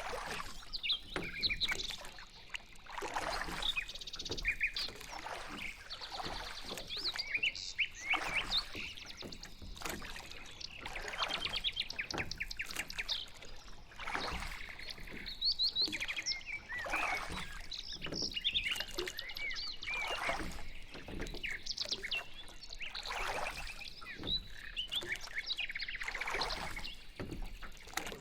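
Songbirds chirping and trilling throughout, many short high calls overlapping, over repeated swells of water sloshing from a pedal boat moving through the water.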